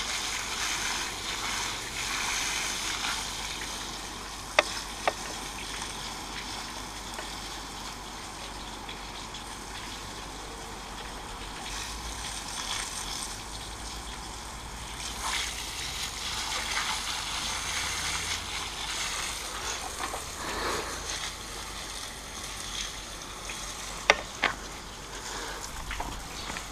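Garden hose spraying water through a thumb pinched over its end, hissing and spattering against a stripped painted wooden door and concrete as caustic paint stripper is rinsed off. Two short sharp clicks stand out about four and a half seconds in, and two more near the end.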